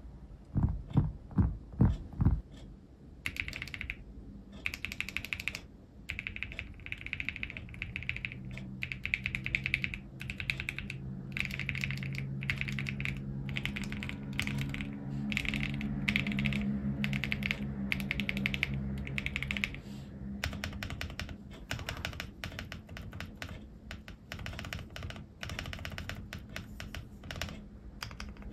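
Typing on an AKKO ACR75 v2 mechanical keyboard fitted with KAISYA switches: bursts of rapid keystrokes with short pauses, starting about three seconds in after a few low thuds.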